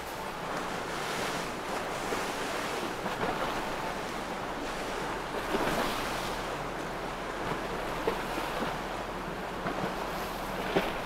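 Steady rush of wind on the microphone over choppy water, with a few brief knocks.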